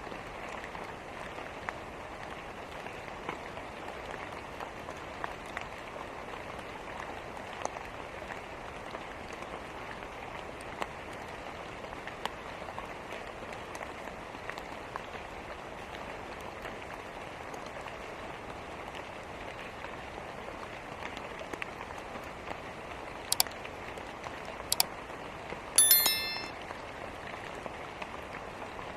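Steady rain hiss mixed with a fireplace's small scattered crackles. Near the end come two sharp cracks, then a louder one that rings briefly.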